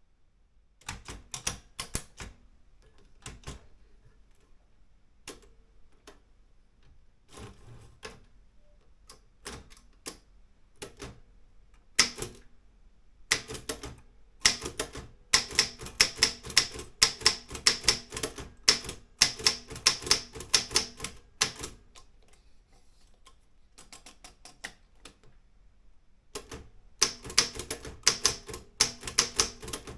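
Olympia M8 manual typewriter being typed on, its keys striking in irregular runs. The typing is slow and scattered at first, then comes in fast bursts. It stops for about four seconds and starts again near the end.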